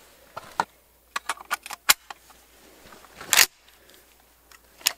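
Metallic clicks and clacks of a .308 hunting rifle being handled and loaded: a quick run of sharp clicks in the first two seconds, a louder, longer clack a little over three seconds in, and another click near the end.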